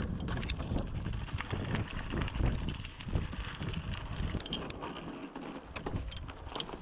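Wind buffeting the handlebar-mounted camera's microphone over the rumble of mountain bike tyres rolling on rocky dirt singletrack and slickrock. Scattered sharp clicks and rattles come from the bike as it bounces over the rocks, most of them about four seconds in and near the end.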